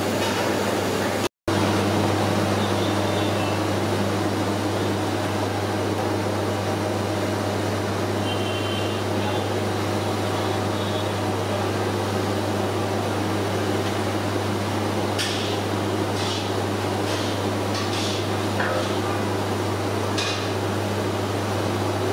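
Steady low machine hum with a rushing noise, like a fan or blower, cutting out for an instant about a second and a half in. A few short crackles come between about fifteen and twenty seconds in.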